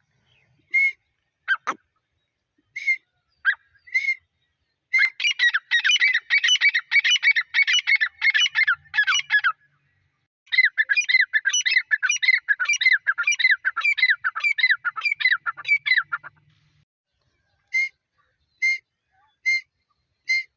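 Grey francolin calling: a few separate loud notes and a couple of quick downward-sliding notes, then two long runs of rapid repeated calls, then separate notes again near the end.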